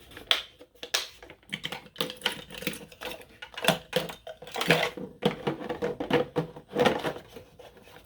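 Metal hand tools clinking and clattering as they are handled and shifted around in a steel tool cart drawer, a quick irregular run of sharp knocks and clicks.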